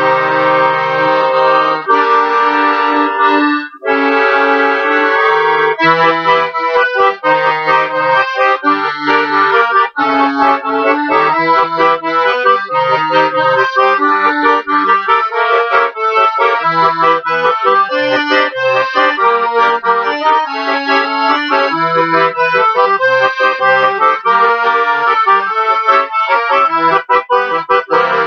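Piano accordion played solo: held chords at first, a brief break about four seconds in, then a quick polka-style melody over a bass-and-chord beat.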